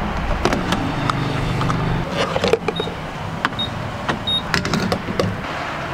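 Fuelling at a gas pump: clicks and clunks of a car's fuel door and of the fuel nozzle being lifted off the pump, with three short high beeps from the pump in the middle. A low vehicle hum runs underneath, strongest at the start.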